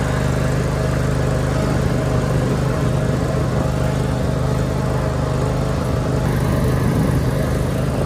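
Riding lawn mower engine running steadily while it tows a chain-link fence drag over loose dirt.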